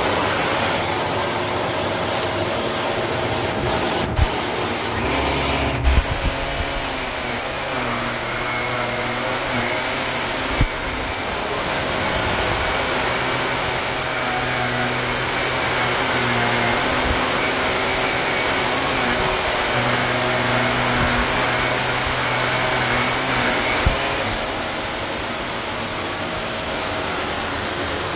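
Shark NV360 Navigator Lift-Away upright vacuum cleaner running steadily, with a few knocks about four to six seconds in and its tone shifting as it works.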